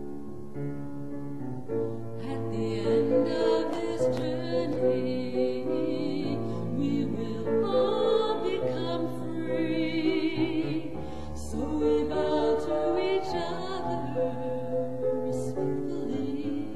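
Choral singing in slow, held notes with vibrato over a low sustained bass line.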